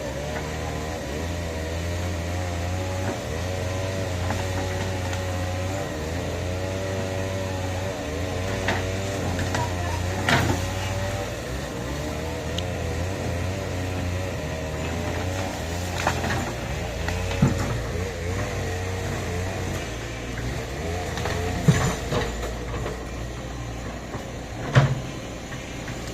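Excavator engine running steadily, with a wavering whine over it and several sharp knocks, the loudest near the end.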